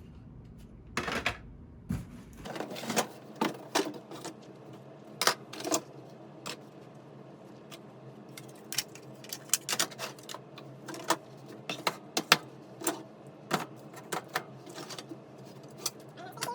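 Hard plastic fire alarm strobes (Wheelock RSS wall strobes) clicking and clattering against each other as they are picked out of a box and handled. The knocks are sharp and irregular, one or two a second, with a louder clack about twelve seconds in.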